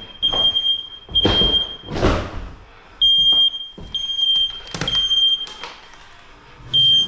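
Smoke alarm sounding a high, steady-pitched beep in groups of three with short pauses between, set off by being bumped. Loud thuds and crashes from the demolition break in between the beeps.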